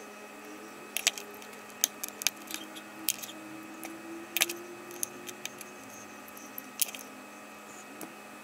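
Small metal hand tools clicking and tapping against each other and on a wooden board as they are picked up and set down: about eight sharp, separate clicks spaced irregularly, over a faint steady hum.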